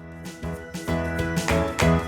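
Upbeat background music with a regular beat, starting just after a brief pause.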